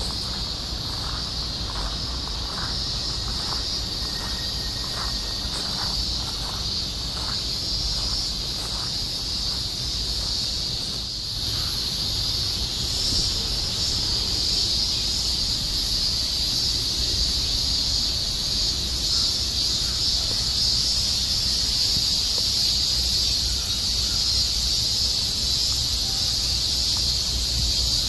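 A steady, high-pitched chorus of insects from the trees. During roughly the first ten seconds it is joined by faint footsteps on gravel at a walking pace.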